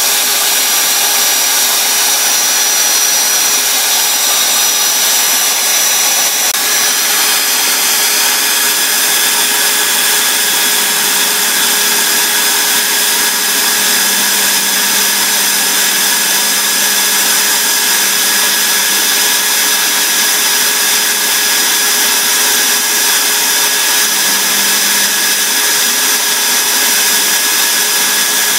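Electric drill running steadily, spinning a cork fishing float on a rod while the float is ground to shape against sandpaper and then a hacksaw blade. The drill's steady whine shifts slightly about six seconds in.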